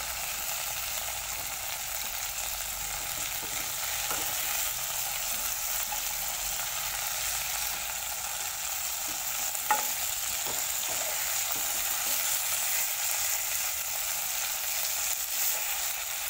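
Rohu fish pieces frying in oil on low heat: a steady sizzle, with a steel spoon now and then knocking and scraping in the pan as the pieces are turned, the clearest knock about ten seconds in.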